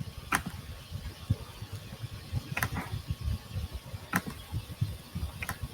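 Computer mouse clicking four times, a second or two apart, over a low irregular rumble.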